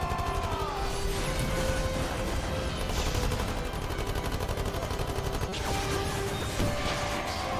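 Sustained rapid automatic gunfire mixed with a music score holding long notes, one of which slides down in pitch about half a second in.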